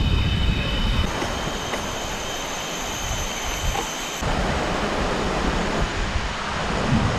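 Cicadas singing: one loud, piercing, steady whine starts about a second in and stops abruptly about three seconds later, over a dense chorus of other insects. Wind rumbles on the microphone at the start and near the end.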